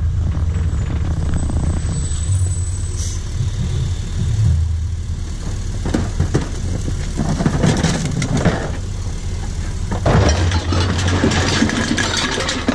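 Rear-loader garbage truck's engine running with a steady low rumble, then recyclables clattering into the steel hopper: cans, bottles and cardboard tipped from a bin. The clatter comes in scattered knocks from about six seconds in and is densest over the last few seconds.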